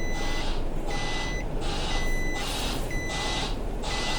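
Recycling lorry's reversing alarm sounding about once a second, a steady beep alternating with a hiss, over the low running of the lorry's diesel engine.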